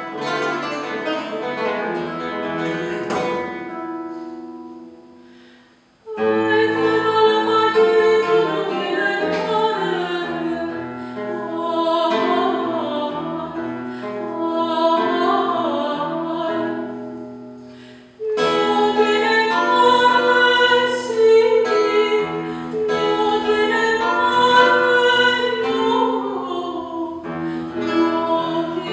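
Soprano voice with classical guitar performing an old Spanish song. A guitar chord rings and fades over the first few seconds, then voice and guitar come in about six seconds in; the sound dies away briefly and they start again about eighteen seconds in.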